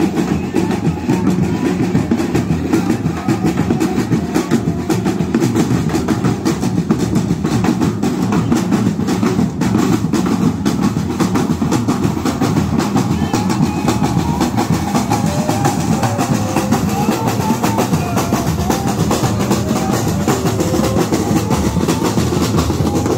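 A marching drum band playing as it passes, snare drums beating a fast, dense rhythm over deeper drums, loud and unbroken.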